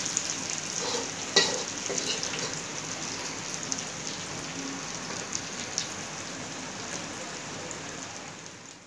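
Chicken and sauce sizzling in hot ghee on a cast-iron tawa that keeps its heat with the stove off: a steady hiss with small crackles and one sharper tick about a second and a half in, fading out near the end.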